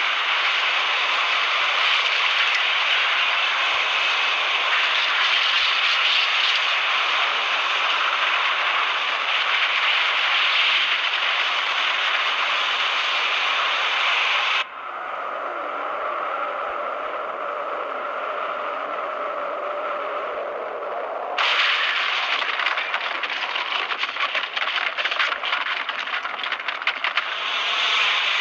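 Sound effects for the atomic-bomb blast in an animated film: a loud, continuous rushing noise of the blast wind and destruction. About 15 seconds in it drops to a quieter stretch of steady low tones for about six seconds. Then the loud rushing returns, now with dense crackling.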